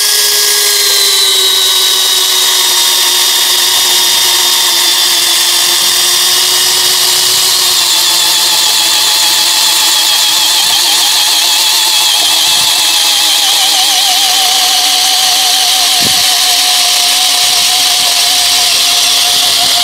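Cordless Kingblue 13 mm drill boring a spiral wood auger bit into a log, its motor running without a break under heavy load. The whine starts right at the beginning and sinks slowly in pitch as it works.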